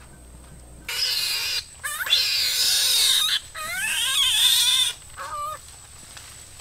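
An animal squealing in three harsh, loud calls with wavering pitch, starting about a second in, followed by a short, weaker call.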